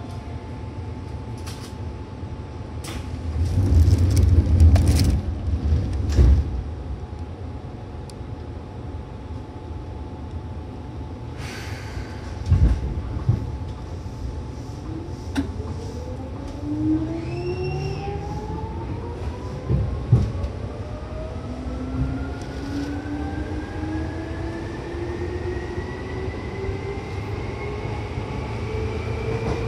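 Inside a Seibu 2000-series electric train: after a few heavy thumps, the train pulls away and its traction motors whine, rising steadily in pitch as it gathers speed over a running rumble.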